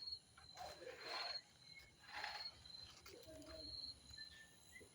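Crickets chirping faintly in a regular repeating pulse, with a few short high whistled notes and two brief louder rustling swishes about one and two seconds in.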